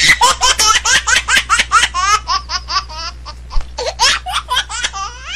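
High-pitched laughter: a long, unbroken run of quick ha-ha syllables at about five a second, the pitch sliding within each one.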